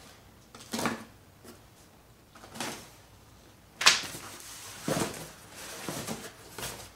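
Utility knife slitting the packing tape on a flat cardboard box and the cardboard being handled and turned over, in several short scraping rustles, with one sharp knock a little before the midpoint.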